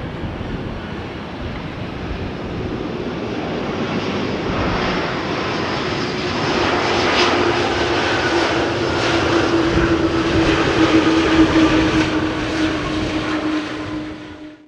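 Boeing 777 jet engines running as the airliner rolls along the runway after landing: a steady jet rumble with a low drone that grows louder as it passes close, then fades away at the end. Wind buffets the microphone.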